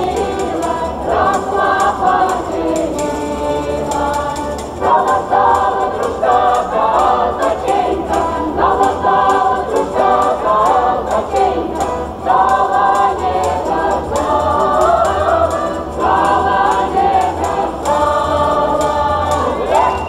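A mixed folk ensemble of men and women singing together in chorus, phrase after phrase.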